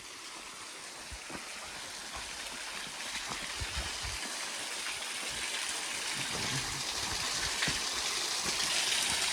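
Water of a small waterfall gushing by icicles, a steady rushing hiss that grows steadily louder, with a few soft low thuds underneath.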